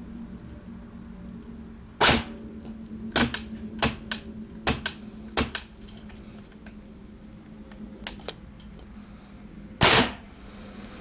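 Tokyo Marui next-generation electric airsoft gun (SCAR-L) firing: a short burst about two seconds in, then a run of single semi-auto shots about 0.7 s apart, a lone shot later, and another short burst near the end.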